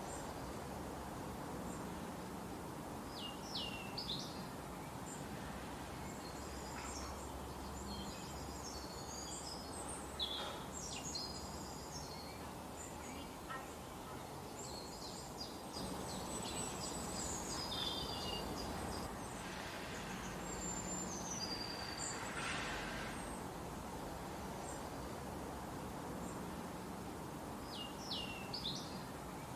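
Small forest birds chirping and singing in several separate bursts of quick, high calls over a steady background rush of forest ambience.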